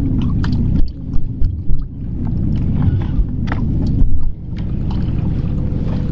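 Waves slapping and lapping against a bass boat's hull over a low, steady rumble, with scattered sharp knocks and a few louder slaps about a second in and again about four seconds in.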